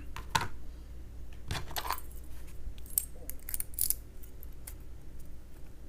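Small metal clicks and clinks, irregularly spaced with a quick cluster a little past the middle, from tools and parts of a discus padlock being worked during disassembly.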